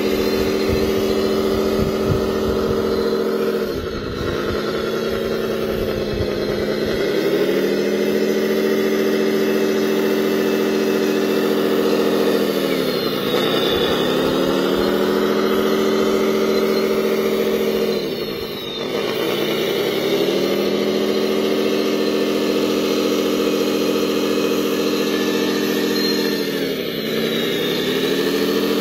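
Remote-controlled model wheel loader's motor running with a steady hum. Its pitch sags briefly and recovers about four times as the loader works the sand.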